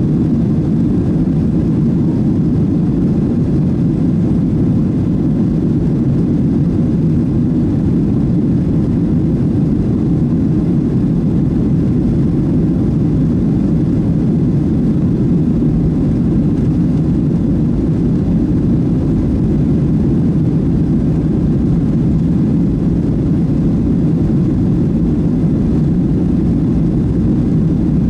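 Steady cabin roar of a Boeing 737-700 airliner, the CFM56-7B turbofans and airflow heard from inside the cabin as an even, deep rushing noise with no change in pitch.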